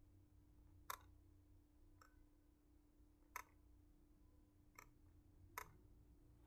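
Five faint, irregularly spaced computer mouse clicks over a faint steady hum.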